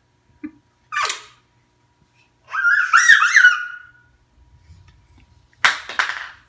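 A toddler's high-pitched wordless squeals: a short one about a second in and a longer, wavering one around three seconds, followed by a short breathy burst near the end.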